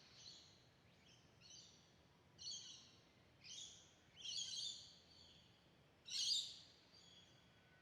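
Birds calling: a series of short, high calls repeated roughly once a second, with the loudest call about six seconds in.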